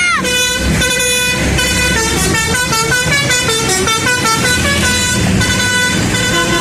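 Indonesian 'telolet' multi-tone bus horn playing a quick tune, its pitch stepping from note to note several times a second, over the low running of the bus engine.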